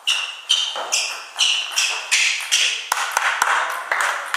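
Table tennis ball hits: a sharp, ringing click about every 0.4 seconds, two to three a second, with a couple of dull thuds a little past the middle.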